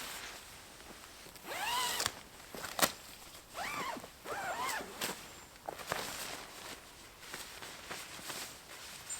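Tent door zipper on a Pomoly Circle 6 hot tent being pulled open in several strokes, each a short whine that rises and falls in pitch, with a few sharp clicks between them.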